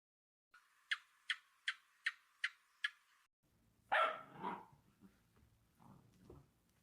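A dog barking: a run of six short, sharp, evenly spaced yaps, then a louder bark about four seconds in, followed by a few softer, shorter sounds.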